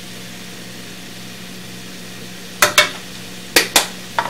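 Sliced onions frying steadily in a pan. Two quick pairs of sharp clicks, then one more near the end, as plastic spice containers are handled.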